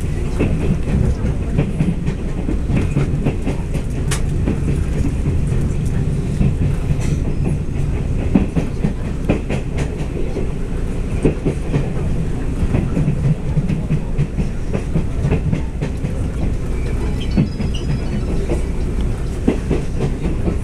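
Interior running noise of a TRA Tze-Chiang EMU1000 electric express train: a steady low rumble of wheels on rails, with irregular clicks and knocks as the wheels cross rail joints.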